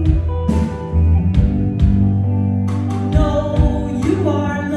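Live reggae band playing, with drum-kit hits over a deep bass line, and a woman singing into a microphone.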